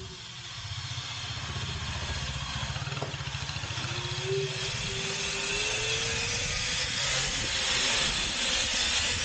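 Car driving along: wind rushing over the roof-mounted camera's microphone, growing louder as it goes. Underneath, the engine drones, with a hum that rises slowly in pitch about halfway through.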